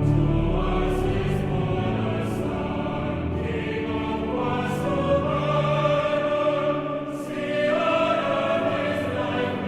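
A choir singing a hymn or carol in sustained, slow-moving chords. It comes in right at the start.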